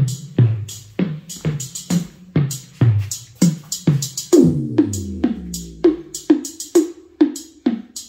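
Music with an electronic beat played loud through a pair of Rockville Power Gig RPG-12 12-inch powered PA speakers. Deep kick drums land about twice a second under hi-hat ticks, with a long falling bass note about halfway through.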